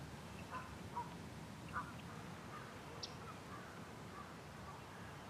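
Faint bird calls: a handful of short calls scattered through otherwise quiet outdoor background.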